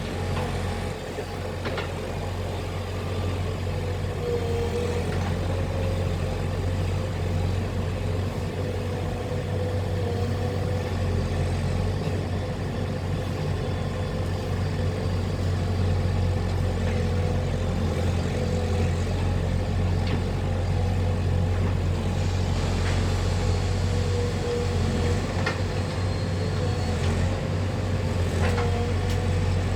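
Heavy diesel machinery running steadily with a low, even engine drone, a few faint clanks toward the end.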